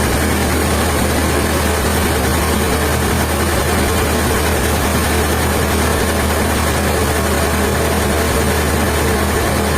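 Heavy sawmill machinery running steadily, a constant loud drone with a strong low hum.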